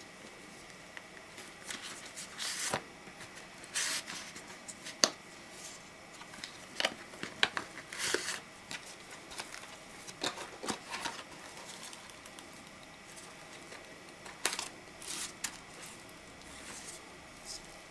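Hands handling a zip-around faux-leather card holder: short scrapes and rustles of cards and leather sliding against each other, the zipper rasping open, and scattered small clicks and taps.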